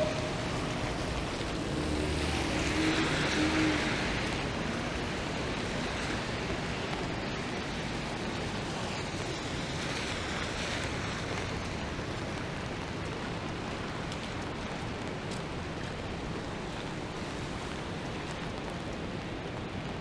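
City traffic on a rain-wet street: a steady hiss of tyres on wet pavement, with a vehicle passing more loudly about two to four seconds in and a fainter swell near ten seconds.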